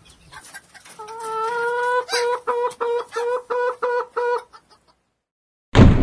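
A chicken clucking: one longer call, then short clucks about four a second. Near the end, a sudden loud hit with a ringing tail.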